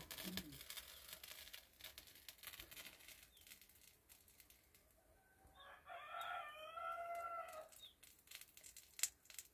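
A rooster crowing once, faintly: a single call of about two seconds, starting about five and a half seconds in. The rest is quiet apart from a few small clicks.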